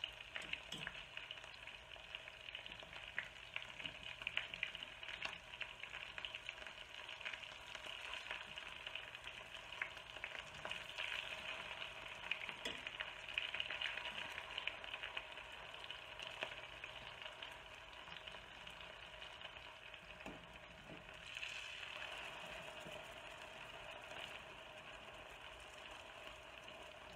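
Breaded chicken strips frying in shallow hot oil in a stainless steel pan: a steady sizzle with fine crackling as the pieces are turned over one by one with a fork.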